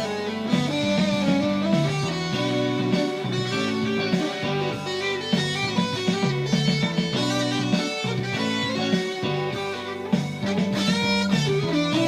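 Warmoth Telecaster electric guitar with a Seymour Duncan Little '59 pickup, played through distortion: a continuous run of distorted chords and riffs.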